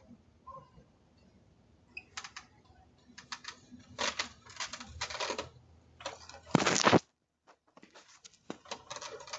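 Rapid clicks and scraping rustles close to a doorbell camera's microphone, as a hand blocks the camera. A louder scrape about six and a half seconds in cuts off sharply into a second of dead silence, then the clicking starts again.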